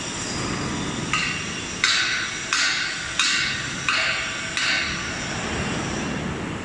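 Six hammer strikes about two-thirds of a second apart, each ringing briefly, over a steady rumble of workshop machinery.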